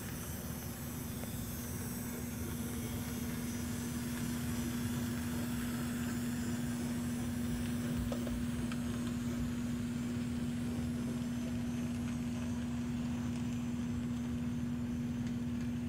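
N scale model steam locomotive running with a short ore train: a steady electric motor hum over a low rumble of the drive and the wheels on the track.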